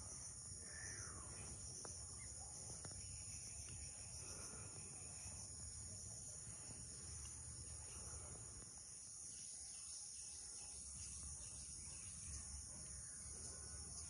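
Steady high-pitched chorus of crickets, with a few faint short chirps over it.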